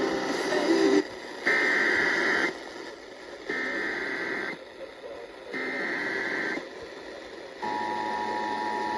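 Emergency Alert System header: three one-second bursts of screeching SAME data tones, a second apart, then the steady two-tone attention signal starting near the end, heard over radio hiss. The sequence announces a flash flood warning for Chicago that is about to be read out.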